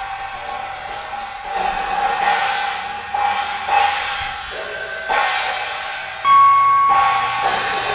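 Improvised percussion played with mallets: ringing cymbal-like washes over a steady ringing tone, with a struck accent every second or so. A bright, bell-like strike about six seconds in is the loudest sound.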